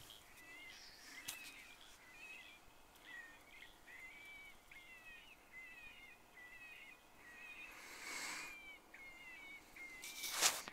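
A steady series of short, high chirping calls, about two a second. A brief burst of noise breaks in about eight seconds in, and a louder one comes near the end.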